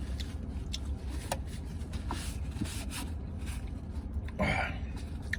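Mouth and chewing sounds of a man eating saucy wings, with faint wet clicks now and then and a short breathy sound about four and a half seconds in, over a low steady hum.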